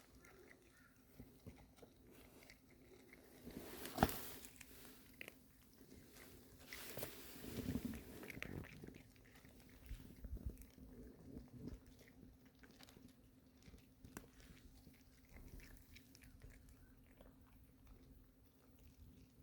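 Stray cat eating dry kibble: faint, irregular crunching and chewing clicks, with a sharp knock about four seconds in.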